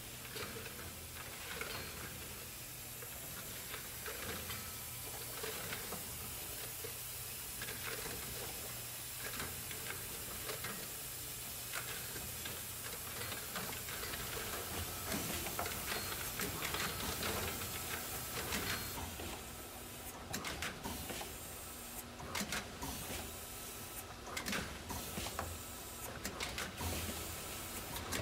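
Premier Starcap servo chuck starwheel capping machine running: a steady low hum under a hiss, with irregular light clicks and knocks as it indexes jars and spins and torques caps onto them. The clicks come more often in the second half.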